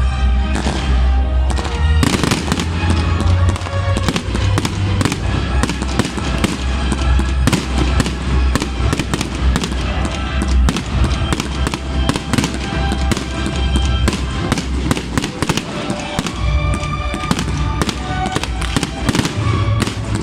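Fireworks display: a dense run of sharp bangs and crackling bursts, thickening about two seconds in, over music with a heavy bass.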